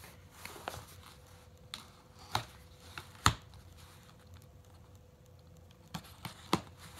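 Knife blade cutting the packing tape along a cardboard box's seam: quiet scraping broken by a few sharp taps and knocks of the blade and hands on the cardboard, the loudest a little over three seconds in.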